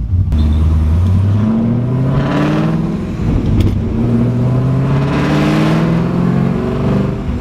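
Car engine accelerating under load, its pitch climbing, dropping back at a gear change about three seconds in, then climbing again.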